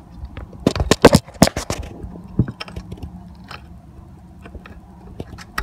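Small metal bolts handled and fitted by hand: sharp clicks and scraping, bunched about a second in, then a few scattered ticks.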